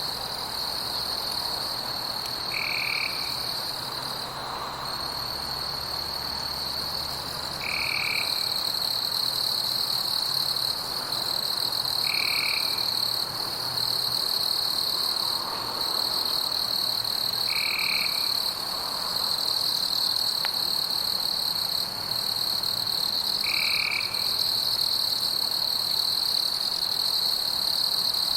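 Night forest ambience: a continuous high-pitched insect trill with fainter steady buzzing above it, and a short call repeating about every five seconds.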